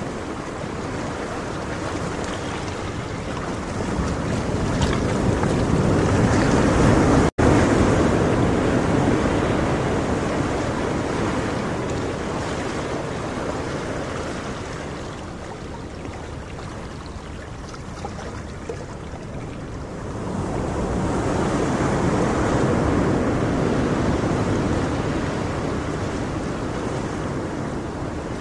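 Ocean surf: waves breaking and washing in a steady rush that slowly swells and fades, louder twice, with a split-second gap about seven seconds in.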